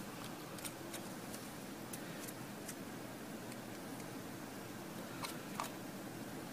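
Faint scattered clicks and ticks of a small electronics module and its wire bundle being handled, over a steady low room noise; two slightly sharper clicks come about five seconds in.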